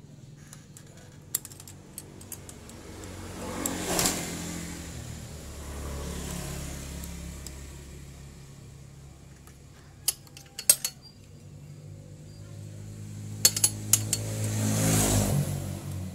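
Motor vehicles going past, swelling and fading about four seconds in and again near the end. Between them come sharp metal clinks of a ring spanner and valve-adjusting tool on a scooter engine's valve adjuster screw and lock nut.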